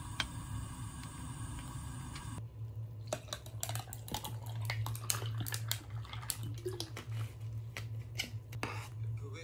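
A spoon stirring stew in an earthenware pot, then iced tea poured from a bottle into a glass of ice cubes, with many sharp clicks and crackles from the ice. A steady low hum runs underneath.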